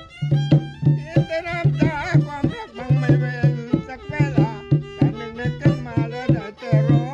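Rong ngeng folk music played live by a violin and a tall conga-style hand drum: the violin plays a sliding, ornamented melody over a steady beat of drum strokes.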